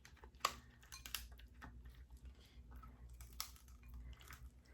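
Faint eating sounds: scattered small clicks and crackles of king crab legs being handled and eaten, with a sharper click about half a second in and another a little past three seconds.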